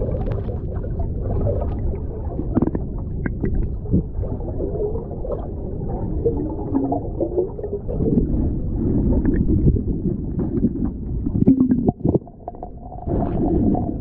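Muffled underwater rumble and gurgling of water rushing past a camera housing towed behind a kayak, with scattered short knocks.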